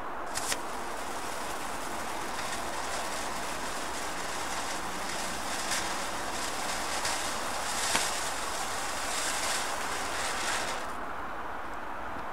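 Ground firework fountain burning: a sharp pop about half a second in, then a steady spray hiss with a few scattered pops, cutting off near the end as it burns out.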